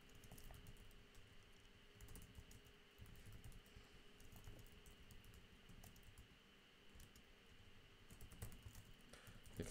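Faint typing on a computer keyboard: irregular runs of key clicks.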